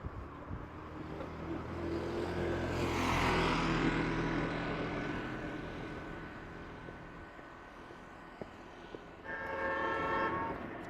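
A motor vehicle passes close by, its engine rumble and road noise swelling and fading over a few seconds. Near the end a vehicle horn sounds once for about a second.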